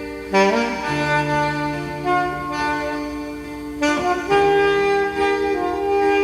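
Alto saxophone playing the melody in long held notes over electronic keyboard accompaniment with sustained chords and bass.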